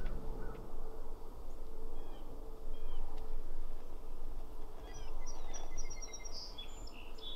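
Small birds chirping, with a short, quick twittering song about five seconds in, over a steady low rumble.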